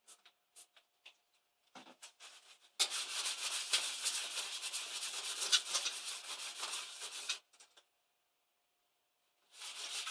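Cloth rubbed briskly over a bare metal laptop keyboard plate, degreasing it so double-sided tape will hold. A few light clicks come first, then about four and a half seconds of scrubbing, a two-second pause, and scrubbing again near the end.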